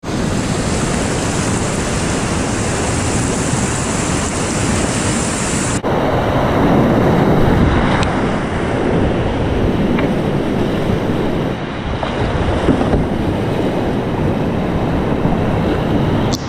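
Whitewater rapids rushing loudly around a kayak on a river running at medium-high flow, about 17 cubic metres a second. The sound changes abruptly about six seconds in, where one stretch of rapids cuts to another.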